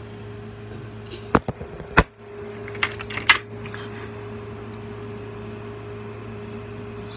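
Handling noise: a few sharp knocks about one and a half and two seconds in, then a short run of lighter clicks about three seconds in, over a steady hum.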